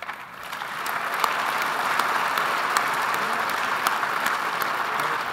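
Audience applauding, a dense patter of many hands clapping that swells over the first second and then holds steady.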